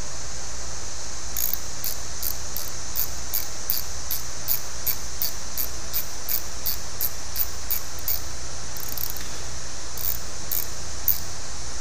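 Steady high-pitched insect chorus, with a regular chirp or click about two to three times a second through most of it that trails off into a few scattered ones near the end.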